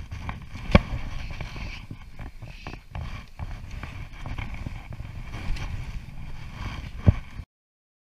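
Low rumbling wind and handling noise on a body-mounted camera's microphone, with scattered small clicks and two sharp knocks, one about a second in and one near the end. The sound cuts off abruptly a little after seven seconds.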